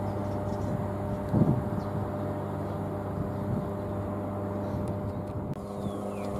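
GWR Class 387 Electrostar electric multiple unit approaching and running into the platform, a steady electric hum over a low rumble, with a brief thump about a second and a half in.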